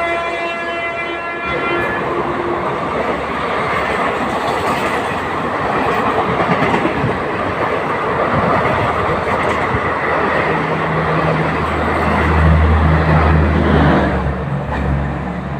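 Indian Railways train horn sounding and cutting off about a second and a half in, then an express train running past with a steady rumble and wheel clatter on the rails. A deeper hum joins about ten seconds in and fades away near the end as the train passes.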